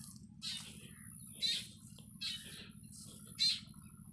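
A bird calling over and over, one short call about every second, with a faint, thin, steady high-pitched tone behind it.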